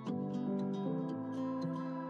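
Background music: a plucked-string melody over sustained notes.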